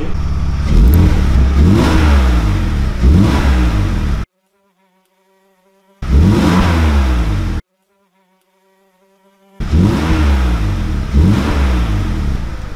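BMW straight-six engine revved in short blips, with the pitch rising and falling, heard at the tailpipe of the stock exhaust with its centre and rear silencers. The exhaust is heavily muffled by the factory silencers. There are three stretches of revving, each cut off suddenly to near silence.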